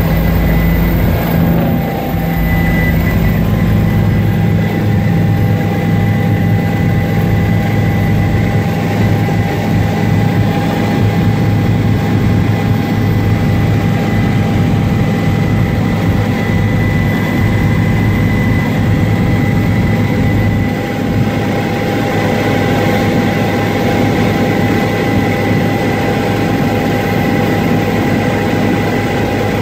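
Helicopter in flight heard from inside the cabin: a steady, loud drone of engine and rotor, with steady high-pitched whines over it.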